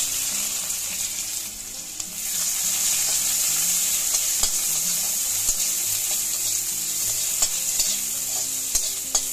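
Sliced onions sizzling steadily as they fry in hot oil in a black kadai, stirred with a metal spatula that gives a few sharp taps and scrapes against the pan in the second half.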